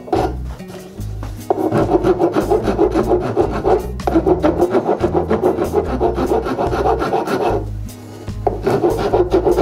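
Wood rasp being pushed in quick, repeated strokes across the side of a curly maple hand plane body, shaping it by hand, with a short pause near the end before the strokes resume.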